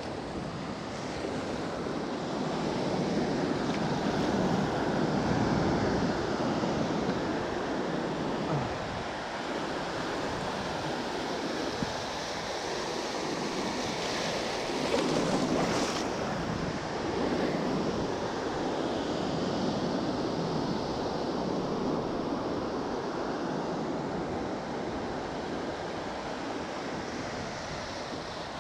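Ocean surf breaking on a beach, a continuous wash that swells and eases as the waves come in, with wind buffeting the microphone.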